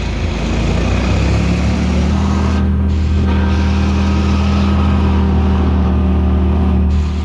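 Boat engine running hard under way, its pitch rising over the first couple of seconds, then holding steady, and easing off slightly just before the end.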